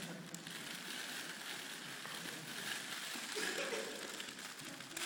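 Rustling and crinkling of a cellophane-wrapped gift bag as it is pulled out of a sack.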